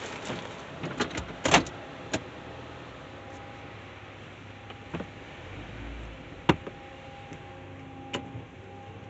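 Autec soft-touch car wash equipment heard muffled from inside the car: a steady hum with scattered knocks and clicks, the loudest about one and a half and six and a half seconds in. A faint steady whine sets in after the second knock.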